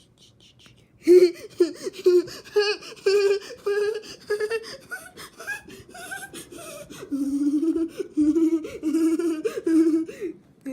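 A high-pitched voice laughing in short wordless bursts, about two or three a second, starting about a second in and dropping to a lower pitch about seven seconds in.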